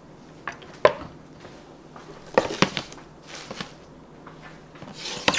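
Kitchen items handled on a wooden cutting board and granite counter: a few sharp knocks and short clatters, with a denser rustling clatter near the end as a plastic basket of lettuce is set down.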